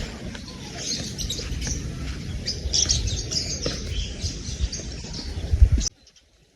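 Birds chirping and twittering in quick, scattered calls over a steady low rumble, all cutting off abruptly near the end.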